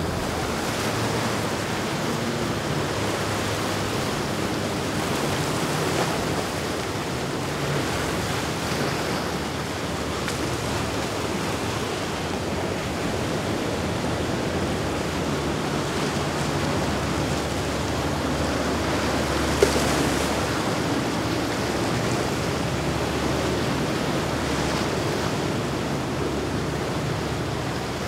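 Rough inlet waves and surf rushing, with wind buffeting the microphone and a low steady hum underneath. A single short sharp knock about twenty seconds in.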